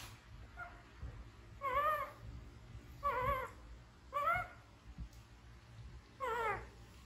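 Baby macaque crying: four short, high, wavering whimper calls a second or two apart. It is a frightened infant's distress call.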